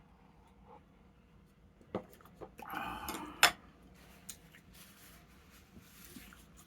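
Light clicks and clatter of tableware at a meal, with one sharp clink about three and a half seconds in.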